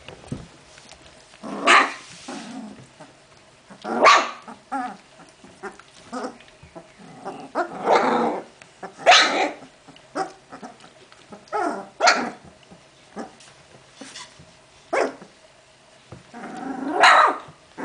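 Litter of young Hungarian vizsla puppies giving short yelps and cries, one every second or two, some overlapping, with the loudest near the end.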